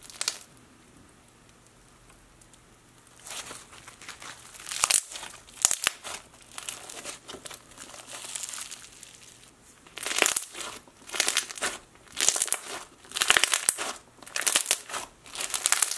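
Clear-glue floam slime packed with foam beads being squished and stretched by hand, the beads crunching in irregular bursts. Quiet for about the first three seconds, busiest in the last six.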